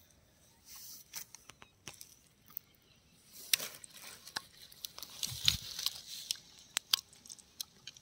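Hands rubbing and squeezing thick wet spice paste onto small parrot fish in a clay pot: irregular sticky squelches and smacks, busiest about halfway through.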